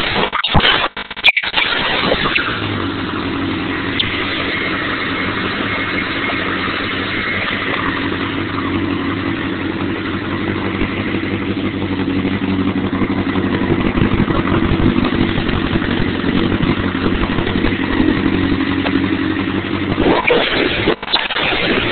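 1988 Honda CBR1000F Hurricane's inline-four engine running through dual Yoshimura exhausts. It gives two sharp bursts about a second in, then runs steadily until a short dip near the end.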